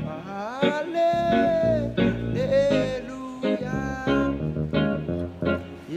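Guitar playing a Ghanaian-style praise-song bass line with passing chords, low plucked notes moving under higher chord tones. A voice sings the melody over it, sliding up about half a second in and again near the middle, without clear words.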